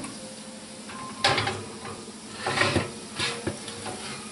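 Oven door opening with a sharp clunk about a second in, then a metal baking sheet clattering and scraping on the oven rack as it is pulled out, with another knock soon after. Under it, bacon sizzling on the hot pan.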